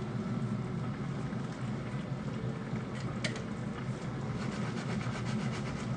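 Thick creamy sauce simmering in a pan on an induction hob over a steady low rumble. A single sharp clack comes about three seconds in as silicone-tipped tongs are set down.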